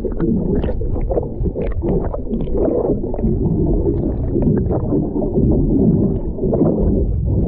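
Muffled underwater rumble and gurgle of water moving around a submerged camera's microphone, with scattered faint crackles.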